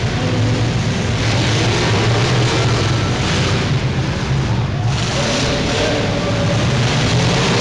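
Several demolition derby cars' engines running together, a loud, continuous engine racket whose pitch rises and falls as the cars drive and manoeuvre on the arena's dirt floor.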